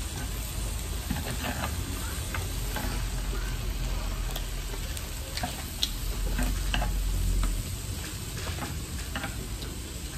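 Beef rolls wrapped around enoki mushrooms sizzling on a tabletop grill plate, with scattered sharp clicks of chopsticks against the plate.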